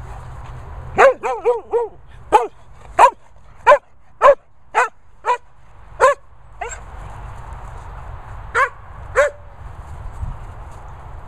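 Sprocker spaniel barking, loud and short. A quick run of four barks comes about a second in, then single barks about every half second for a few seconds, and two more near the end.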